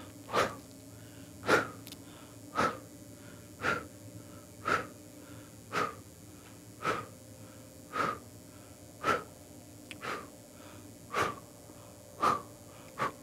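Short, sharp breaths repeating evenly about once a second, twelve in all, over a faint steady hum.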